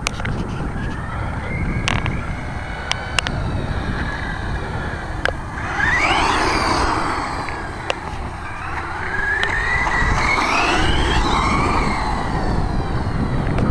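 Electric 1/10-scale RC truck motors whining, rising and falling in pitch as the trucks accelerate and back off: one sharp rise and fall about six seconds in, and a longer one from about nine to twelve seconds, over a low rumble.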